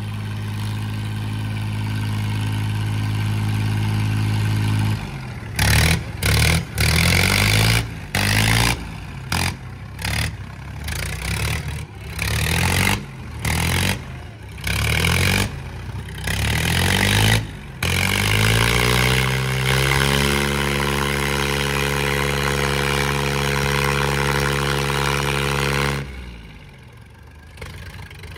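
Tractor diesel engines in a tug-of-war pull. The engine runs steadily at first, then is revved hard in repeated surges about once a second for some seconds. It is then held at high revs under heavy load, and the revs drop off sharply near the end.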